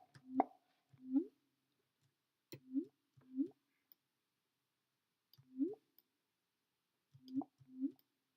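Short synthesized water-droplet pops from a Native Instruments Massive patch played in Logic: about eight brief notes, each a low tone that bends sharply upward in pitch, at irregular spacing with a pause of about two seconds in the middle. The upward sweep comes from an envelope driving the filter cutoff and resonance.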